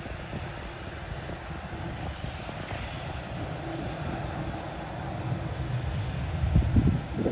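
Boeing 787 Dreamliner's jet engines running as the airliner rolls past and turns onto the runway: a steady rumble and roar that grows louder near the end, with low rumbling surges.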